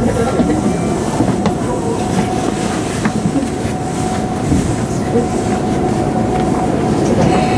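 Tokyu 3000 series electric train running on the rails, heard from inside the car. The wheels give a steady rumble, with a faint steady whine over it and a few sharp clicks over rail joints.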